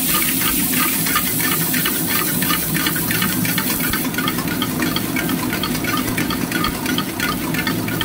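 Chopped onion, ginger, garlic and green chilli sizzling in hot oil in a steel wok, stirred with a metal ladle that scrapes and clinks against the wok over and over. A steady low hum runs underneath.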